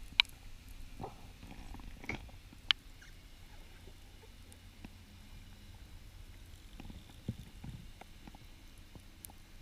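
Underwater sound picked up by a camera in its housing while the diver swims: a low steady rumble of water moving past, with three sharp clicks in the first three seconds and a softer knock about seven seconds in.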